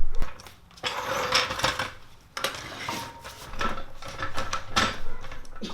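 Metal clattering and scraping with several knocks, as a floor jack is handled and worked under a lowered BMW E30.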